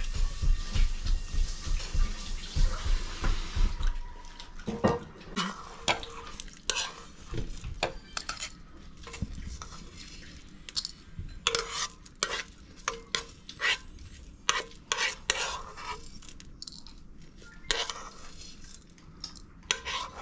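A metal spoon scraping and tapping against a non-stick pan, gathering leftover fried noodles: many short, irregular clicks and scrapes. The first few seconds are a denser, louder stretch of low thumps and rustling.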